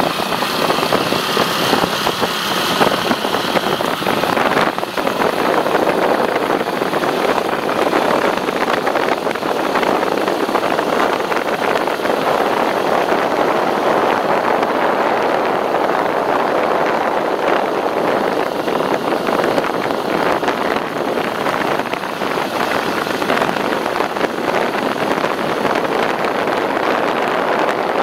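A motorcycle engine running steadily as the bike rides along a road, with the even rush of road noise.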